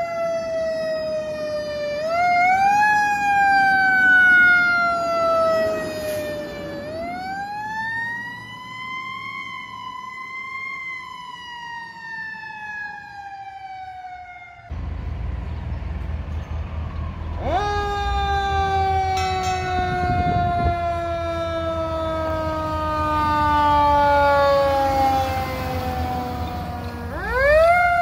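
Fire engine siren wailing in long cycles: each one climbs quickly in pitch and then slides slowly down over several seconds. About halfway through, the sound cuts to another take in which the truck's engine rumbles under the siren.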